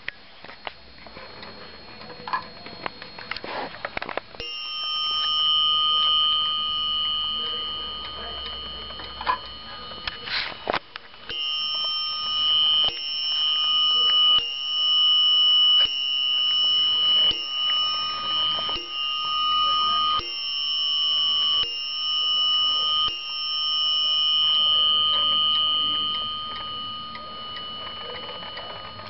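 Dutch Zaanse weight-driven wall clock ticking, then striking on its bell: a run of about a dozen ringing strokes roughly a second and a half apart, each dying away before the next, the first left to ring longer than the rest.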